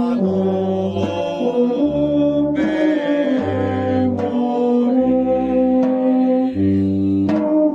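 Brass band playing a slow piece in held chords, a low bass line moving to a new note about every second.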